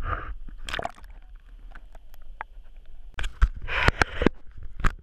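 Sounds aboard a fishing boat at sea: a steady low wind rumble on the microphone, water sloshing, and scattered knocks, with a louder rushing burst a little before the end.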